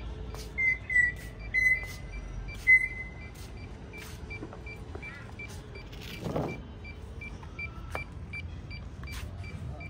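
A drone's remote controller being handled and set up: short high electronic beeps about half a second, one and a half seconds and nearly three seconds in, with small clicks of the controls, over faint steady background noise.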